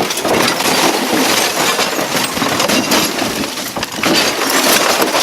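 An old television being pried and broken apart by hand: a steady run of cracking, snapping and clinking of its plastic and glass parts.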